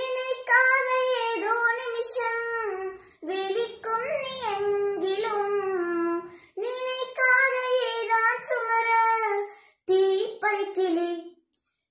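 A child's solo voice singing a nasheed unaccompanied, in melodic phrases of about three seconds with short breaks for breath between them.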